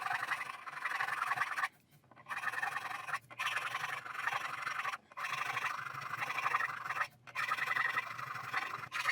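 A fret file rasping back and forth across the metal frets of a Gibson SG, in several runs of quick strokes broken by short pauses. The frets have worn flat and are being crowned, filed back to a rounded top.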